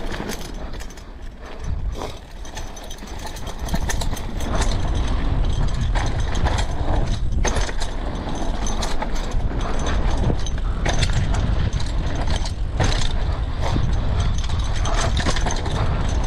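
Mountain bike ridden over a loose gravel trail: tyres rumbling and crunching on stones, with the chain and frame rattling and clicking over the bumps. It is quieter for the first few seconds, then louder from about four seconds in.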